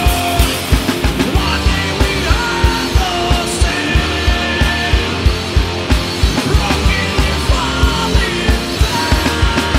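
Doom-thrash metal band playing full-on: distorted electric guitars and bass over a rapid, steady kick-drum beat, with long held high notes that bend in pitch.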